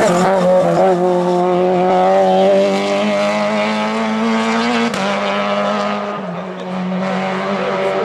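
Lada saloon rally car's engine held at high revs at full throttle as it passes and pulls away, the note staying nearly constant in pitch. A brief break in the note about five seconds in is followed by a slight fade as the car moves off.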